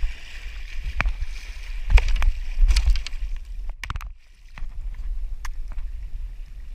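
Water splashing and sharp knocks as a kayak paddle strikes at a hammerhead shark thrashing alongside a kayak, over a steady low rumble on the microphone. The loudest hits come about one, two and three seconds in, with a couple more near four seconds and fainter ones later.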